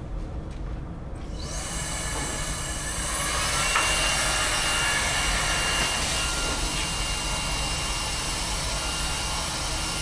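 Sharp EC-KR1 paper-pack cordless stick vacuum running at full suction, its motor winding up over the first few seconds and then holding a steady rush of air with a high whine. The suction is drawing air up a clear tube strongly enough to lift a bowling ball.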